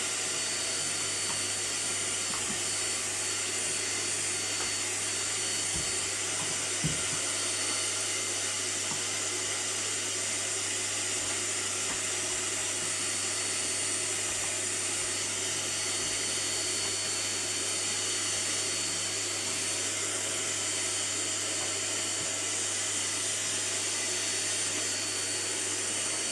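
Vacuum cleaner running steadily, a continuous whooshing hiss over a low hum, with a couple of faint knocks about six and seven seconds in.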